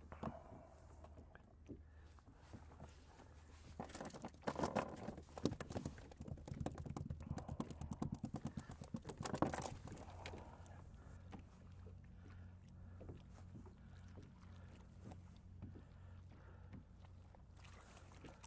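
Faint knocking and rattling of fishing tackle being handled on a kayak while small fish are unhooked from a sabiki rig, busiest from about four to ten seconds in, with a quick run of rapid ticks. After that only a faint steady low hum remains.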